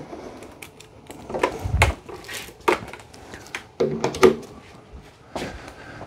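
Clicks, knocks and a low thump of hard plastic being handled as the charging cord is plugged in and the Tineco Floor One S5 Combo wet-dry vacuum is seated in its charging dock. There is a short tone about four seconds in.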